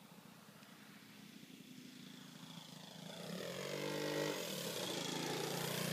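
Radio-controlled SIG Space Walker model airplane flying low past, its engine and propeller growing louder over the first few seconds and then holding loud. The engine note dips in pitch and comes back up.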